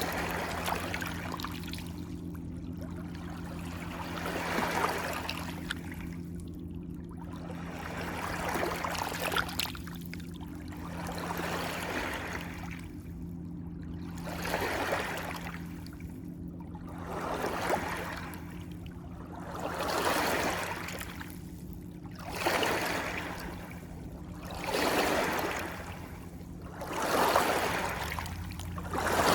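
Water lapping in regular swells, one about every two and a half seconds, growing louder toward the end, over a steady low hum.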